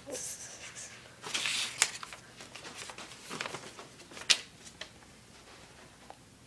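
Paper rustling in short bursts, with two sharp taps about two seconds and four seconds in.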